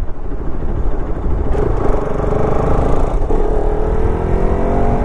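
Bajaj Pulsar RS200's single-cylinder engine pulling under way, its note climbing steadily from about three seconds in as the bike accelerates, over a heavy low rumble of wind and road.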